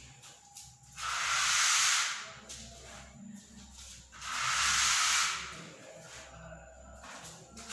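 A hand texture tool dragged top to bottom through wet textured wall paint to comb in vertical stripes. Two long hissing scrapes, each about a second, a few seconds apart.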